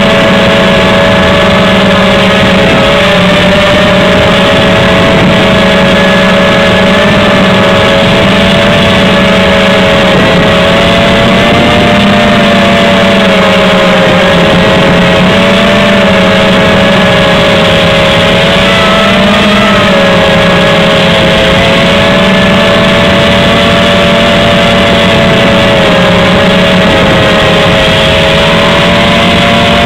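HobbyKing X230 quadcopter's brushless motors and propellers buzzing loudly, heard close up through the onboard camera's microphone. The pitch wavers slightly up and down as the throttle changes.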